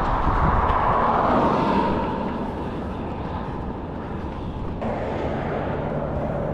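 A vehicle passing by, its noise fading after about two seconds, then a lower steady hum of traffic.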